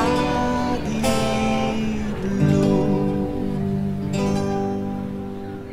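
Background music on acoustic guitar: held notes ringing, with a new chord about every second and a half, fading near the end.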